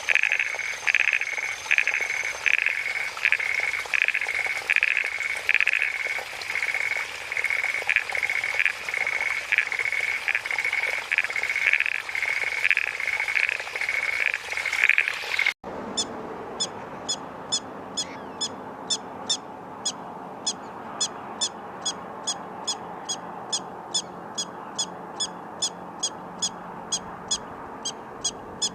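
Repeated animal calls in two parts. First a call is repeated about twice a second. About halfway through it cuts abruptly to a faster, even series of short high-pitched chirps, about three a second.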